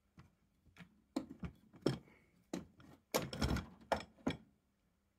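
An old hand-cranked breast drill being handled and turned over on a wooden workbench: a series of irregular knocks of metal on wood with some rattling of its loose parts, loudest about three seconds in.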